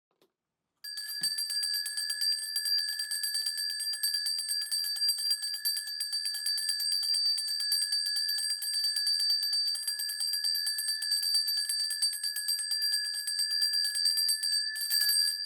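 Korean shaman's ritual bells (a cluster of small brass bells on a handle) shaken rapidly and continuously for about fifteen seconds, a high steady jingle that stops abruptly near the end, as the shaman calls on the spirits for a reading.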